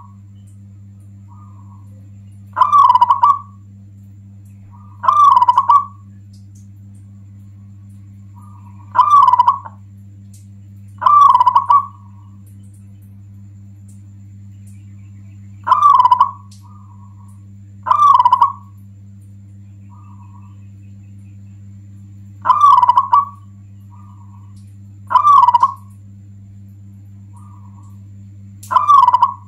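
Local zebra dove (perkutut lokal) singing its cooing song: nine loud calls, each under a second long, repeated every two to four seconds, several followed by a short soft note. This is the song used as a lure to rouse other doves into calling. A steady low hum runs underneath.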